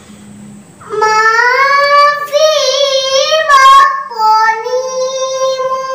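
A young girl reciting the Qur'an in melodic tilawah style. After a short pause she begins about a second in with a long, high held phrase whose notes glide and waver in ornaments.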